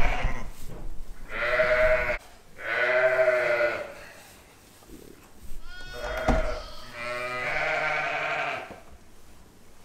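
Sheep bleating repeatedly: about four long bleats, one of them higher and thinner near the middle. A short knock sounds about six seconds in.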